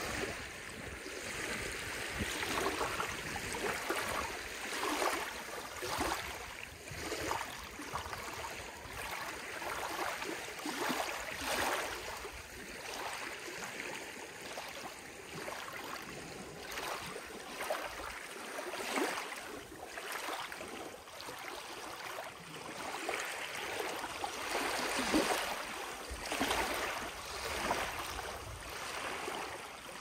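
Small lake waves lapping and washing, an irregular splashing that swells and fades every second or two.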